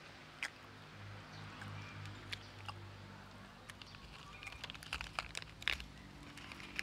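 Baby monkey chewing a cracker: faint, scattered crunching clicks, with a cluster of louder ones about five seconds in, over a steady low hum.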